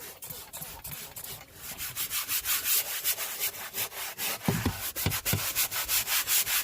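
A brush scrubbing back and forth over a surface with quick, even strokes, about four a second, working at black marks. The scrubbing gets stronger about two seconds in.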